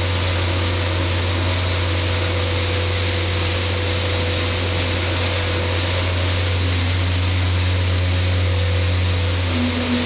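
Pellet conveying system running: a steady low hum under a continuous rushing hiss as pellets stream out of the discharge pipe and pour from the outlet.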